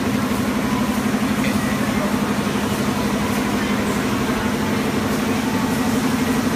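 Continuous band sealer with vacuum and nitrogen gas-filling unit running: a steady mechanical hum with a fast, even flutter.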